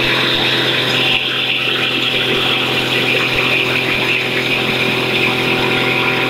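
Weiwei 9ZF-400 integrated feed grinder running steadily while crushing dried corn kernels: a constant machine hum under a dense, even high rushing noise.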